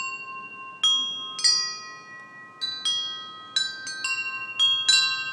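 Wind chimes ringing: about a dozen irregular strikes of high metal tones, each ringing on and overlapping the next.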